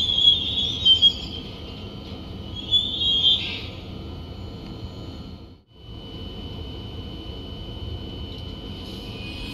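Trenitalia Hitachi Rock double-deck electric train moving slowly through a station, with a high squeal from the running gear in the first few seconds, then a steady high-pitched whine. The sound drops out briefly just past the middle.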